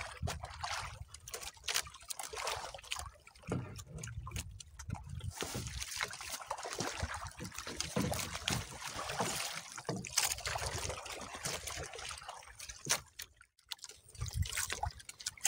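Sea water sloshing and splashing against the hull of a small outrigger boat, with scattered knocks and rustles as a fishing handline is hauled in by hand. It drops briefly quiet near the end.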